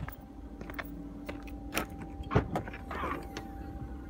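Audi A1 hatchback tailgate being opened: a few sharp clicks and knocks, then the latch releasing and the lid lifting with a short rush of noise about three seconds in.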